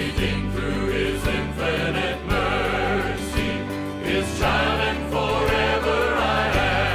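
Choral intro music: a choir singing a gospel-style piece over instrumental accompaniment.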